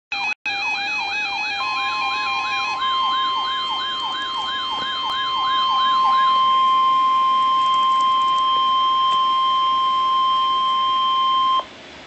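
Weather alert radios sounding their warning alarms together: a fast warbling siren and a stepping two-tone beep for the first several seconds, over the steady 1050 Hz NOAA Weather Radio warning tone. The warning tone cuts off suddenly near the end.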